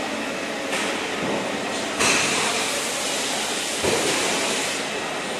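Steady railway noise around a passenger coach's bogie. About two seconds in it grows suddenly louder and hissier, and there is a sharp knock just before four seconds.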